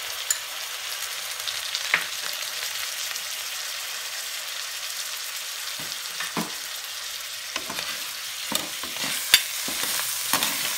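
Corned beef and ground beef sizzling in hot oil in a metal wok, a steady hiss. From about six seconds in, a spatula scrapes and knocks against the wok as the meat is stirred.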